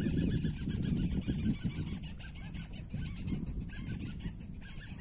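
Fast, even run of high, short chirps from an unseen small creature, over a low rumbling noise.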